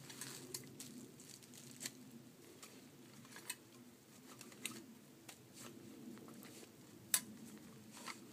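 Rustling and crinkling of camping gear and packaging being handled and unpacked, with scattered small clicks and ticks, the sharpest about seven seconds in, over a faint low steady hum.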